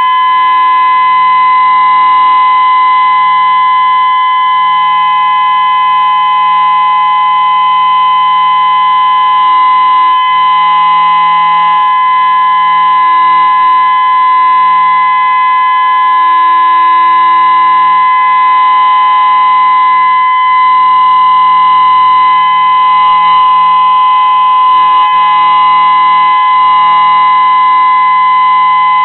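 Whelen WPS-2016 electronic outdoor warning siren sounding a loud steady test tone on one unchanging pitch, without rising or falling.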